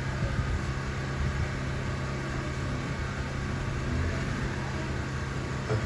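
Steady low hum with even background noise, the room's or recording's constant drone; a brief faint sound comes near the end.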